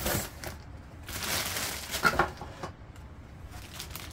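Rustling and handling of the printer's packaging and box contents in a series of noisy bursts, with a sharper clack about two seconds in.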